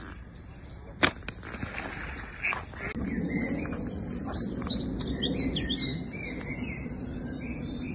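Small birds chirping and singing, with two sharp clicks about a second in and a low rustling noise underneath from about three seconds in.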